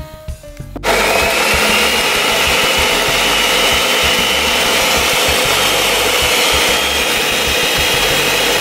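Countertop blender running on high, chopping cilantro and chiles in lime juice into a green sauce. It starts abruptly about a second in, its motor whine rising a little as it comes up to speed, then runs steadily until it stops at the end.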